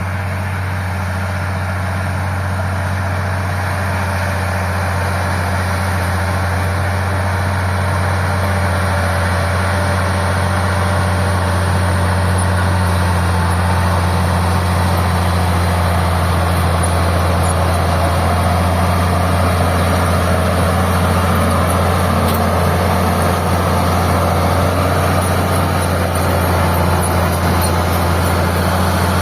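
Old Caterpillar D6 crawler dozer's diesel engine running steadily with a deep rumble.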